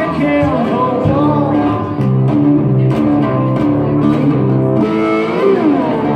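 Overdriven Weissenborn lap steel guitar played with a steel bar: notes glide up and down in pitch over a repeating riff of held low notes.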